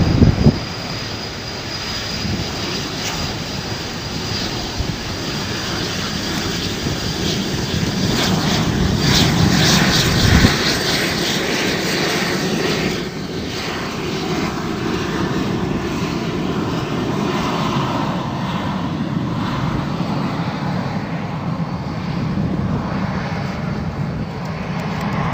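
Airplane engine noise from an aircraft in flight, continuous and fairly loud, swelling to a peak with a sharp knock about ten seconds in.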